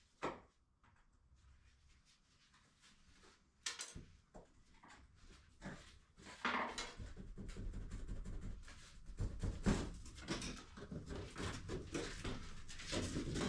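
Hand demolition noise: a fixture being pried and wrenched loose, with a couple of isolated knocks and then, from about six seconds in, a steady run of scraping, creaking and clattering.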